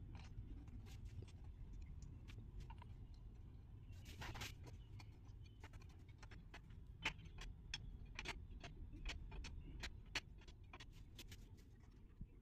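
Screwdriver clicking and scraping on the screws of a Yamaha MT-15's oil filter cover as they are driven in on the engine case: scattered sharp little clicks, thickest in the second half, over a faint low hum.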